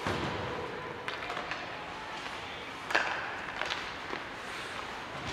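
Ice hockey play: scattered sharp clacks of sticks and puck, the loudest about three seconds in, over the steady hum of the arena.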